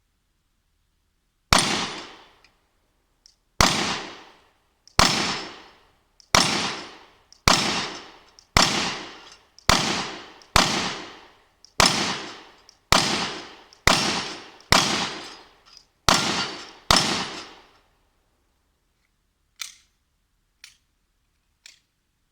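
Glock 19 9mm pistol fired fourteen times in slow, single shots about a second apart, each report ringing out for most of a second. A few faint clicks follow near the end.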